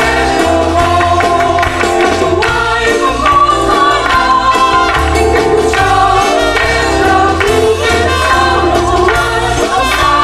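A Thai-language Christian worship song, sung over instrumental backing with a steady bass. The words sung are 'we offer praise as an offering to Him, to the Lord.'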